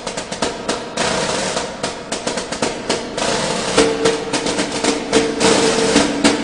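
Percussive music: rapid, irregular drum hits, with steady held notes coming in about four seconds in.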